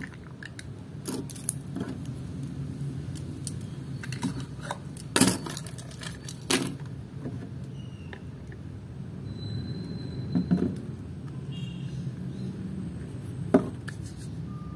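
Plastic gallon jug and small plastic bottle being handled: scattered sharp clicks and knocks as the jug's cap is unscrewed and the bottle filled and set down, over a steady low background hum.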